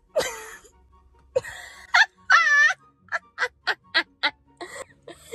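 Edited-in music clip with a wailing voice, heard in separate bursts. From about halfway through it breaks into short stabs, about four a second.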